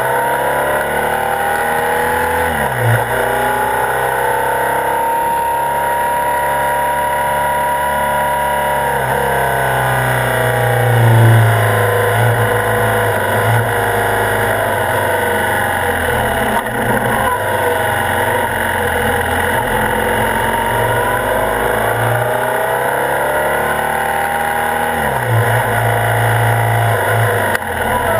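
BMW R65's air-cooled flat-twin engine running under way, its revs rising and falling several times as the motorcycle rides through bends, heard close up from a camera on the front fork.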